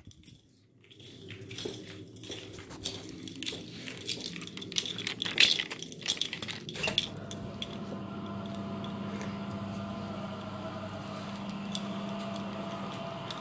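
Keys clinking and a door latch clicking as a door is unlocked and opened. About halfway through, a steady machine hum with a low tone and a higher tone takes over.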